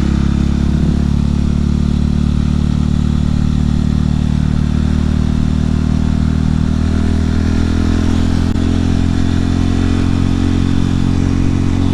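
Husqvarna 701 supermoto's single-cylinder four-stroke engine running steadily under way, its note holding nearly constant, with wind rush over a microphone inside the rider's helmet.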